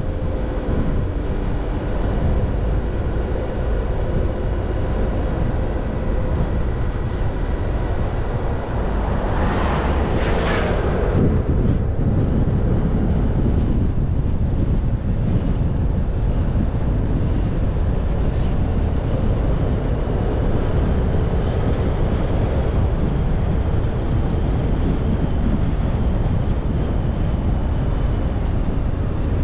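Car driving along a road: steady low rumble of road and wind noise. A brief rushing whoosh swells and fades about ten seconds in.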